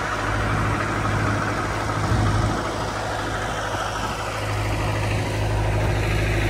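A boat engine idling, a steady low hum.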